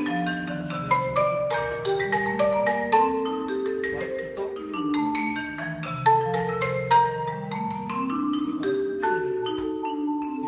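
Solo marimba played with four mallets: a fast, dense stream of struck notes in the upper range over held low notes that ring underneath.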